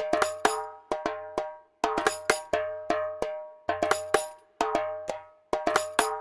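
Sampled Anatolian percussion from a Kontakt library playing a rhythmic pattern. A metallic, bell-like instrument is struck several times a second and rings with clear pitched tones. A deep drum sounds underneath through parts of the pattern.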